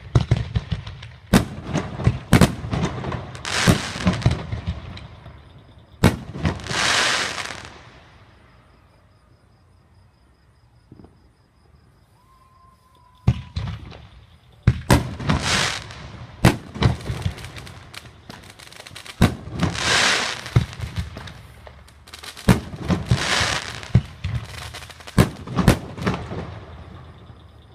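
Fireworks going off: sharp bangs mixed with hissing, crackling bursts. After about eight seconds there is a lull of roughly five seconds, then a second volley of bangs and crackles.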